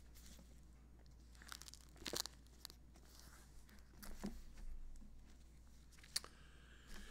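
Bible pages being turned by hand: several short, faint paper rustles and crinkles as the thin pages are leafed through to find a passage.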